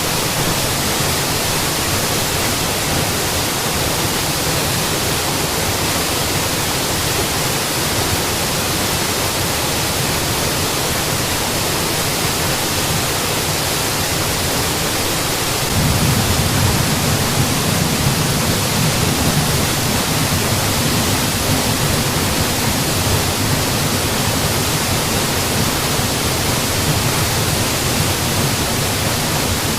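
Mountain waterfall rushing: a steady, even wash of falling water. About halfway through, its deep low rumble grows a little louder and stays that way.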